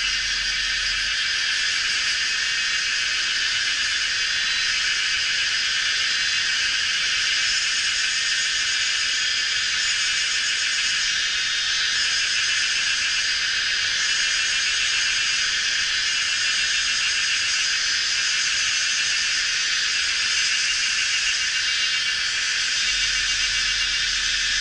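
A dense chorus of cicadas calling: a continuous high, shrill buzz that holds steady throughout.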